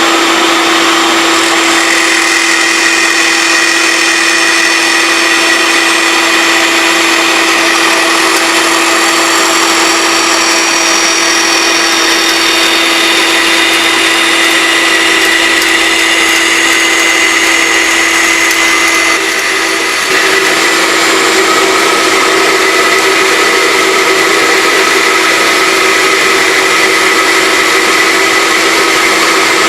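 Bandsaw running steadily with a constant hum while its blade cuts a curve through a tapered wooden table leg. The sound dips briefly about twenty seconds in.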